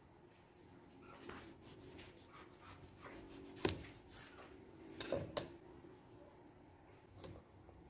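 Kitchen knife slicing through tomatoes and knocking on a plastic cutting board: faint scattered clicks, a sharp knock about three and a half seconds in and a short cluster of louder knocks near the middle.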